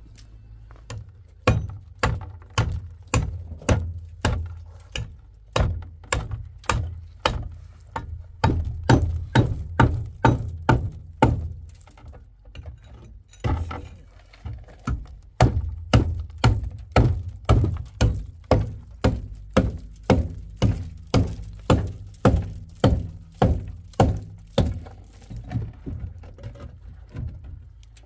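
A hand tool striking something hard over and over, about two blows a second, pausing briefly about halfway through and then resuming, typical of hammering on a building job.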